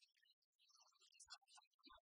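Near silence, with faint scattered ticks and clicks.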